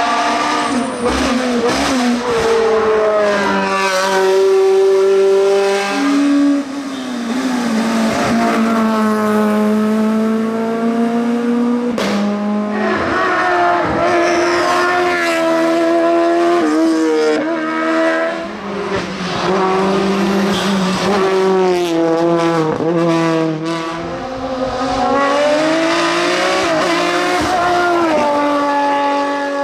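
Race car engines at full throttle on a hillclimb, revving hard through the gears. The pitch climbs and then drops back at each shift, again and again, with a few short sharp cracks in between.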